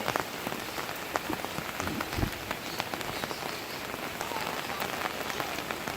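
Light rain falling, many separate drops ticking, as a shower eases off. A short low thump about two seconds in.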